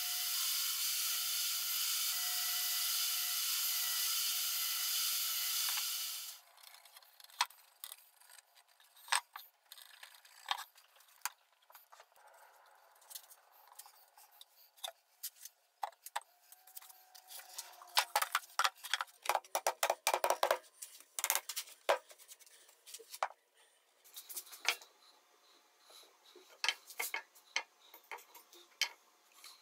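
Table saw running steadily for about six seconds while cutting a Douglas fir panel, then cutting off abruptly. After it come scattered small clicks, taps and scrapes of hand work on wood: glue being brushed on, then a hand blade scraping along the glued rim.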